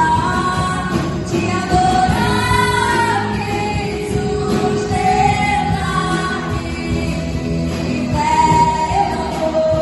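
Christian worship song with a woman singing long held notes over a full band accompaniment.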